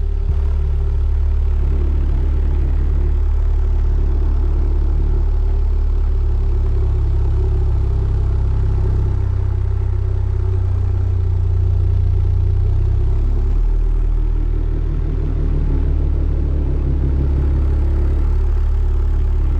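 A pair of Genius 10-inch subwoofers in a ported box playing a steady, loud 36 Hz test tone. Above the deep tone there is a rough fluttering layer from air pushing hard out of the box's port. The drivers make no odd noises, which is taken as a sign of good cone control.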